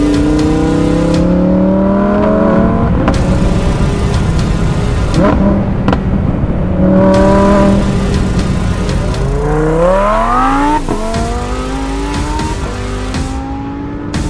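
Lamborghini Huracán Performante's naturally aspirated V10 accelerating hard through the gears, its pitch rising in several sweeps, each broken off sharply at a shift. The longest and highest rev climbs about ten seconds in and cuts off abruptly, after which the engine runs on at lower revs and fades a little near the end.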